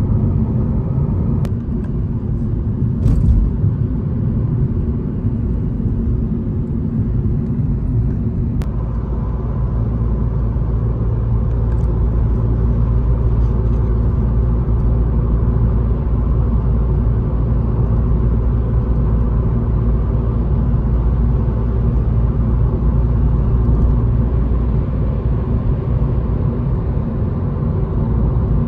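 Steady low rumble of road and engine noise heard inside the cabin of a car driving at speed on a dual carriageway.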